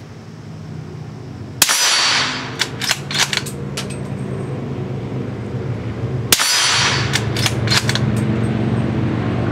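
Two suppressed rifle shots, about five seconds apart, from a Ruger American Ranch bolt-action in 300 AAC Blackout firing supersonic 125-grain ammunition, each followed by the metallic clicks of the bolt being worked. A low hum runs underneath.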